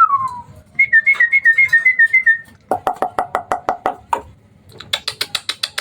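Hybrid jalak suren (Asian pied starling) singing. It gives a falling whistle, then a rippling warbled phrase, then two runs of rapid clicking chatter at about eight notes a second.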